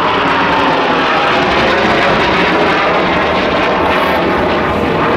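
Blue Angels F/A-18 Hornet jets flying overhead in a four-ship diamond formation: loud, continuous jet engine noise with a whine that slowly falls in pitch as they pass.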